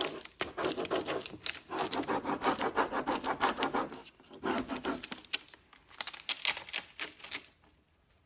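Rapid back-and-forth rubbing on a Prima rub-on transfer sheet as it is burnished onto a painted surface, scratchy strokes in runs that are strongest in the first half and fade toward the end.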